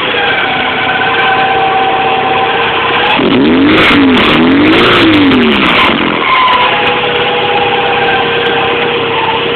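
Toyota MR2 Turbo's 3S-GTE engine running with a steady high-pitched screech. About three seconds in it is revved up and back down twice and the screech drops out, returning once the engine settles back to idle.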